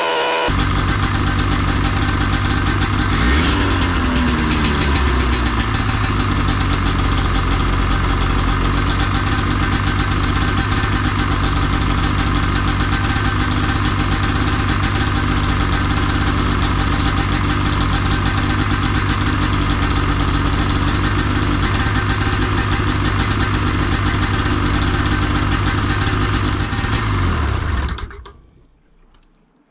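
Ski-Doo snowmobile's Rotax 500 two-stroke twin running steadily, warming up to operating temperature so the thermostat opens and air bleeds out of its freshly filled cooling system. The revs shift briefly about four seconds in, and the engine is shut off near the end, the sound dying away quickly.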